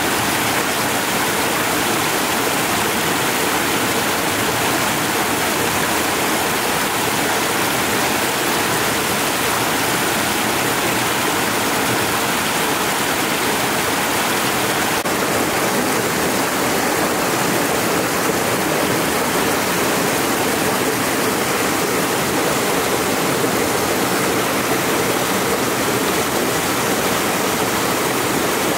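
Spring water gushing steadily from a wooden spout and splashing over rocks.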